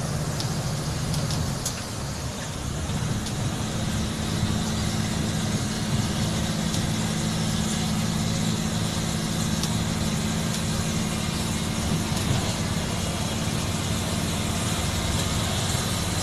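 Bus diesel engine running under load, heard from inside the cab. The engine eases briefly about two seconds in, then pulls steadily.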